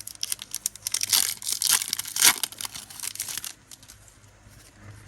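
Foil wrapper of a Pokémon card booster pack crinkling and tearing as a stubborn pack is pulled open. The rustling dies down about three and a half seconds in.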